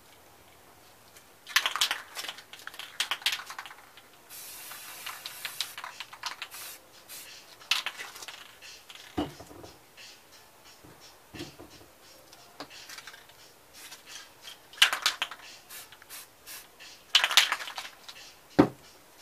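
Aerosol spray-paint cans being handled: clattering and knocking of cans against the work table in several bursts, and one hiss of spray paint lasting about two seconds, about four seconds in.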